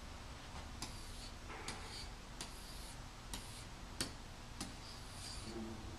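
Faint, sharp clicks and short scratches from a stylus tapping and drawing on the surface of a Promethean interactive whiteboard, about six at irregular intervals.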